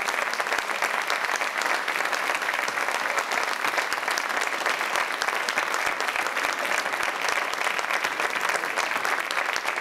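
Audience applauding: steady, dense clapping.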